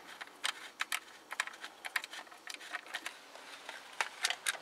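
Quick, irregular metallic clicking of a hand tool working a screw loose on the lower timing belt cover.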